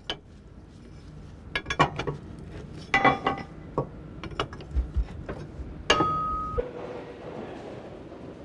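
A metal hand tool clinking and knocking against the steel underframe of a tram, in a series of irregular sharp strikes. One harder strike about six seconds in rings on briefly, and a steady hiss follows.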